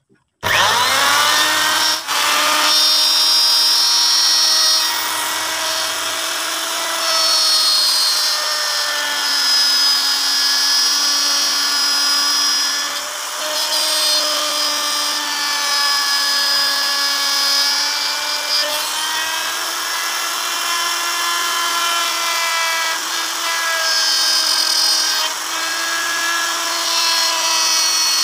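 Makita router switched on, spinning up to speed within about a second. It then runs steadily, its whine dipping and recovering slightly in pitch as the bit cuts grooves into the wooden panel.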